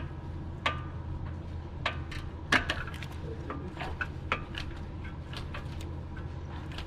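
Sharp metallic clinks and taps of hand tools against metal, a dozen or so at irregular intervals, over a steady low hum.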